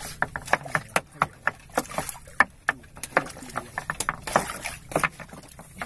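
A hooked sea catfish (manyung) thrashing at the water's surface beside a wooden boat: irregular sharp splashes and knocks, a few a second.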